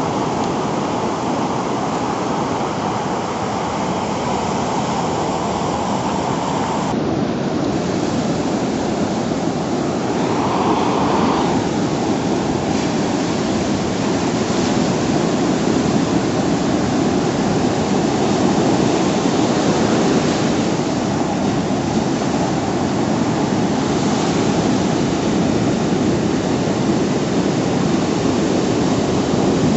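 Ocean surf from a hurricane swell breaking continuously, a steady rush of noise. Its sound changes abruptly about seven seconds in.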